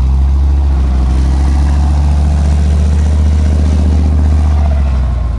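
Deep, steady engine rumble of a tank, easing off near the end.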